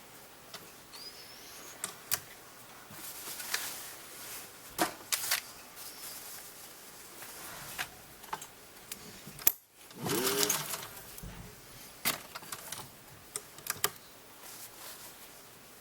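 Irregular clicks, knocks and rustling from handling a Singer 201 sewing machine and its fabric, without a steady run of stitching.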